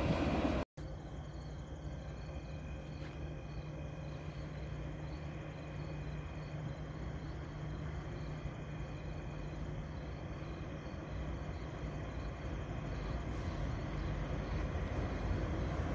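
A train's noise cuts off abruptly under a second in, leaving quiet night ambience at a station platform: crickets chirping faintly over a steady low hum. Over the last few seconds the sound of an approaching GO Transit train, led by an MP40PH locomotive, grows louder.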